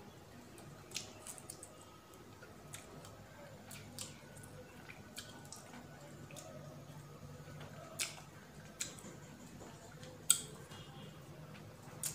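Close-up eating sounds of someone chewing broiler chicken picked from the bone by hand: scattered wet lip smacks and mouth clicks, the loudest about ten seconds in.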